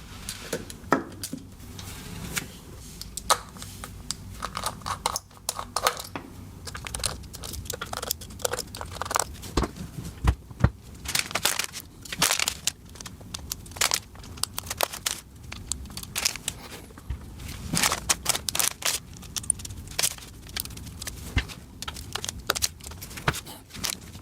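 Hands handling hard drives and their mounting feet: irregular clicks and knocks, with rustling and scraping of handling in between.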